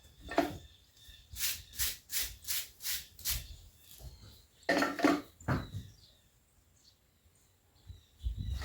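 Farrier's hoof rasp filing a horse's hoof: a quick run of about seven even strokes, then a louder, longer rasping sound about five seconds in.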